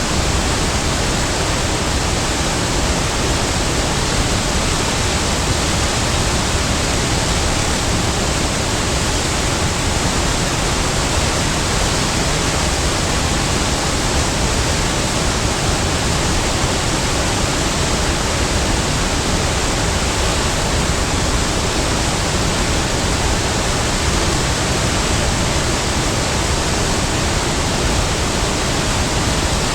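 Large waterfall: a loud, steady rush of falling water, even and unbroken.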